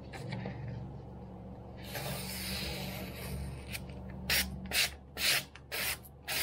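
Freshly sharpened kitchen knife slicing through a sheet of magazine paper in a paper-cutting sharpness test. The paper rustles first, then about five quick slices follow, roughly two a second, each a short hiss.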